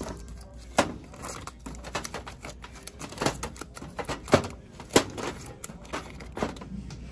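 Irregular sharp clicks and light rustling from snack packets and the wire spiral coils of a snack vending machine being handled during restocking.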